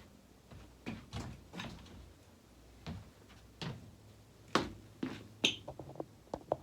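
Scattered soft knocks and clicks of someone moving about and handling the phone that is recording. The sharpest click comes about four and a half seconds in.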